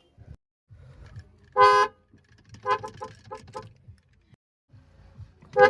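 Car horn sounding: one short blast, then a quick run of about five short toots, then another short blast near the end.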